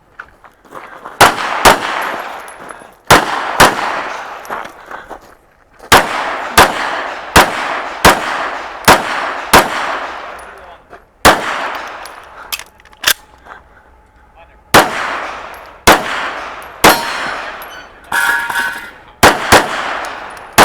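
Pistol shots fired in a string during a practical-shooting course of fire, mostly as pairs about half a second apart, some eighteen or so in all, each followed by a ringing tail of echo.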